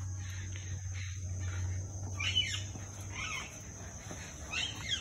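A bird calling: three short chirps that sweep up and then down, in the second half, over a low steady hum.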